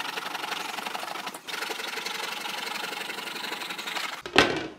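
Jigsaw mounted under the workbench, its blade up through a slot, running and cutting through a pine board with a steady buzz. Near the end the cut breaks through with a sudden loud knock, and the saw goes quiet.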